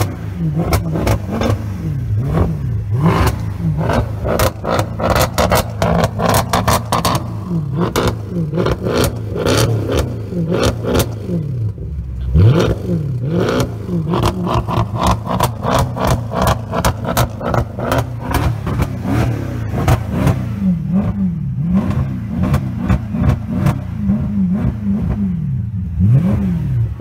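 Mercedes-Benz W204 C-Class engine revved in place over and over, its pitch climbing and dropping again every second or two. Sharp cracks come throughout.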